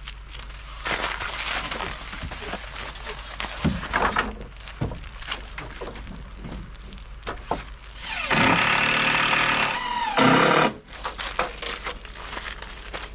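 Scattered knocks and clatter, then a power drill runs for about a second and a half about eight seconds in, slowing as it stops, with a second short burst just after. The drill is driving fasteners to fix rolled bamboo fencing to the cabin's wall plates.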